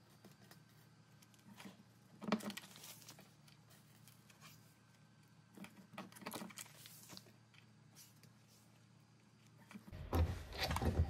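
Sparse small metallic clicks and clinks from metal grommets and washers being handled and set with a hand grommet press, with louder handling noise near the end.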